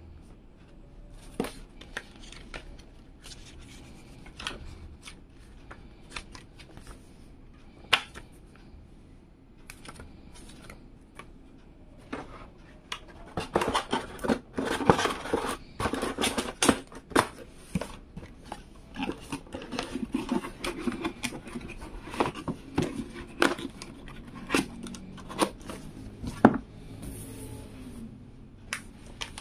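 Cardboard packaging being handled: scattered taps and clicks of a stiff paper card and box flaps, then from about halfway through a dense run of scraping, rustling and knocks as the cardboard box tray is opened and handled.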